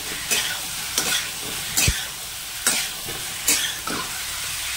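Boiled potatoes and cauliflower sizzling in masala in a kadhai on high heat, with a steady hiss. A spatula scrapes and turns them against the pan about once a second as they are stir-fried.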